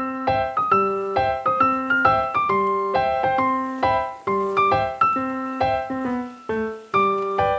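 Piano music: a steady, even run of struck notes, several a second, each ringing and fading into the next.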